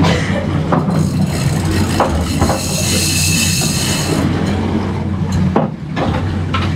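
Outboard motor idling steadily beside the boat while a yellowfin tuna is fought on a spinning jigging reel; from about one to four seconds in the reel's drag gives line with a high whine as the fish runs. A few short knocks of the rod and reel handling.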